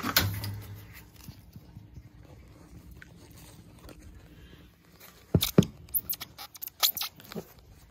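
Hand tools being rummaged and handled in a bucket: a clatter at the start, then a quick run of sharp clicks and knocks about five seconds in.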